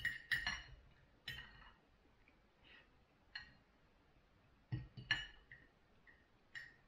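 Metal fork and knife clinking against a plate of food in short, light clusters every second or two, loudest just after the start and again about five seconds in.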